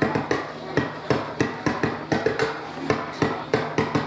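Percussion accompanying a dance: rapid sharp strikes, about five a second in an uneven rhythm, some followed by a short ringing tone.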